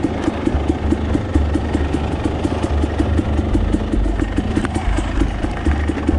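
Husqvarna TE250i two-stroke dirt bike engine running at low speed on a trail ride, under background music with a steady beat of about eight strokes a second.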